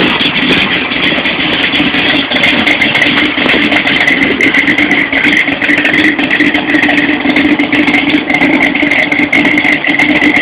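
Built 406 cubic-inch small-block Chevy V8 idling with a lumpy, uneven beat from its big roller cam.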